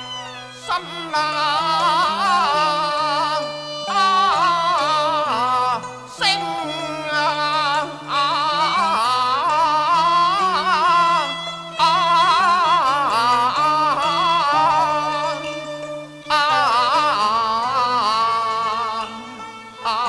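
Cantonese opera (yueqiu) music: a high, wavering melody line in long phrases with short breaks, over steady instrumental accompaniment.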